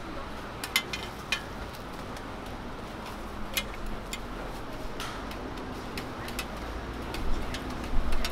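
Metal spatulas clicking and tapping against a flat steel griddle while turning and pressing sorghum pancakes: a dozen or so sharp, irregular clicks over a steady low background hum.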